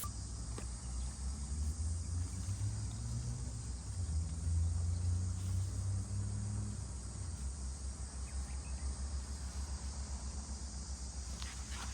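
Insects chirring steadily over a low rumble, with the rumble louder in the first half. A few faint ticks come near the end.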